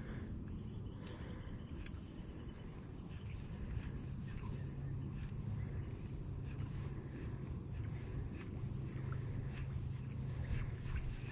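Faint, irregular clicks and ticks of a baitcasting reel and rod as a topwater walking bait is twitched and reeled in, over a steady high-pitched hum.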